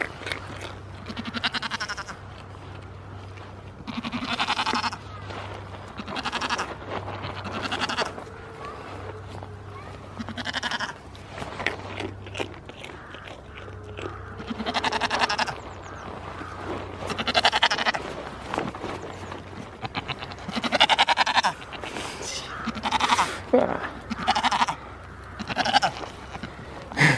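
Goats bleating over and over: more than a dozen loud, wavering calls, coming closer together in the second half.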